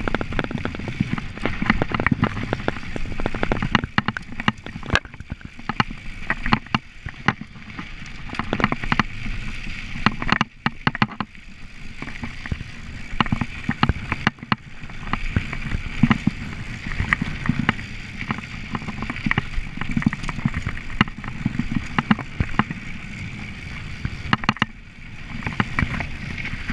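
Mountain bike rolling fast down a dirt singletrack: a rough low rumble of tyres and wind, with many sharp clicks and knocks as the bike rattles over bumps and roots.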